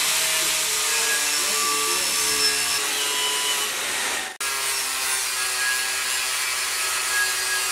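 Angle grinder with a disc running steadily against 4-inch aluminum box-section stanchions, grinding the metal to fit. The sound cuts out for an instant a little past halfway, then carries on the same.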